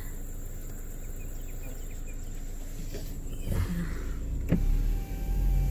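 Car's electric side window running up for about a second and a half and shutting with a click. Afterwards the car pulls away, with low engine and road rumble building.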